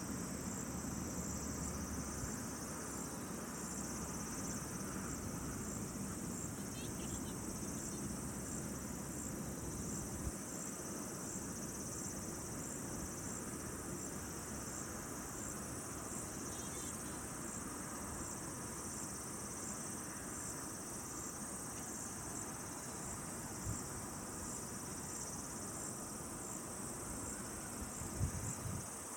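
Insect chorus: a steady high-pitched trill with a regular pulse, over low outdoor ambience, with a few brief soft knocks.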